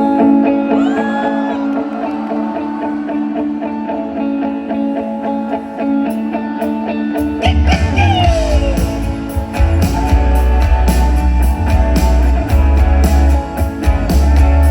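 Live band music: held chords with sliding electric guitar notes. About seven seconds in, drums and bass come in heavily and the music gets louder.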